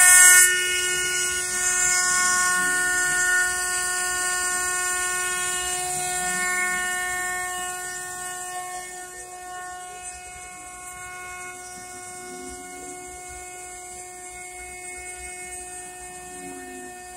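CNC mill cutting a metal disk: the spindle gives a steady high whine with overtones, and there is a burst of cutting noise at the very start. Underneath, the axis stepper motors give a lower tone that glides slowly up and down as the machine traces circular passes. The whole sound grows fainter over the second half.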